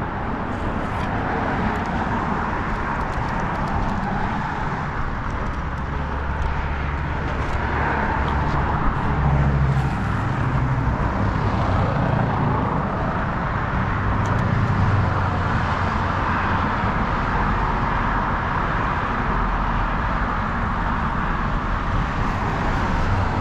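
Steady traffic noise from the highway bridge alongside.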